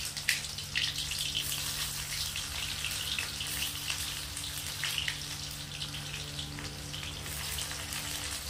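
Chopped onions sizzling in hot mustard oil in a steel kadhai, a dense steady crackle of small spits and pops, at the start of frying them until brown.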